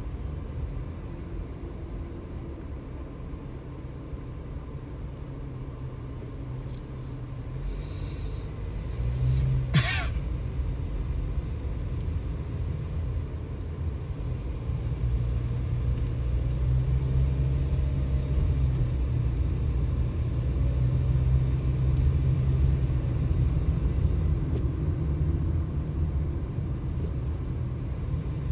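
Car engine and road rumble heard from inside the cabin while driving slowly in traffic, growing louder in the second half as the car gathers speed. A single sharp click sounds about ten seconds in.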